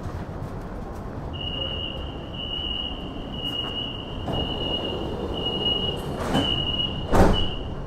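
Metro train running, a steady low rumble from inside the carriage. A high tone pulses over it about once a second from about a second and a half in, and a loud knock comes near the end.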